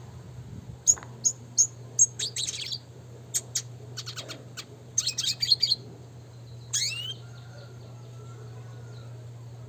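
Red siskin singing: a few sharp chirps, then fast trilling and clicking runs for several seconds, ending with one quick sweeping note about seven seconds in. A steady low hum runs underneath.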